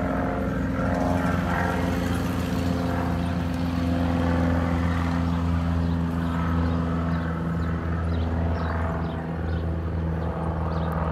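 Engine of a light propeller tow plane droning steadily overhead as it tows an engineless glider aloft.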